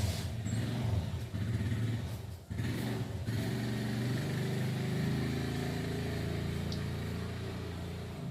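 A motor vehicle engine running steadily, with a brief dip about two and a half seconds in.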